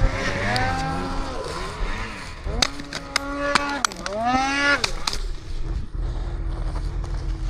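Snowmobile engine revving up and down in several swells, with a few sharp knocks in the middle, then running more steadily.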